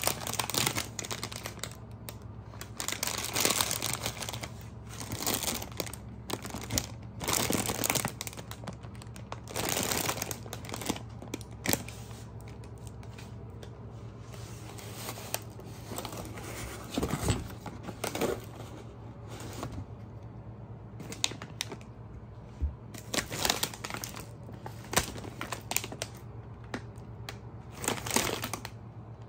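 Plastic food packets crinkling and rustling in irregular bursts as they are handled and shifted in a cardboard box, with a few knocks of bottles and jars.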